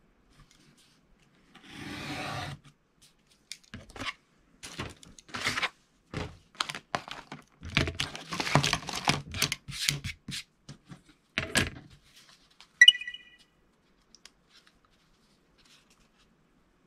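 Craft knife cutting printed styrene board along a steel ruler on a cutting mat: one longer drawn stroke about two seconds in, then a run of short, irregular cutting strokes and knocks. Later comes a single sharp metallic clink with a brief ring.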